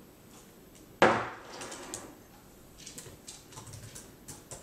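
A single sharp knock about a second in, fading over about half a second, followed from about the middle on by light, irregular clicking of laptop keys being typed on.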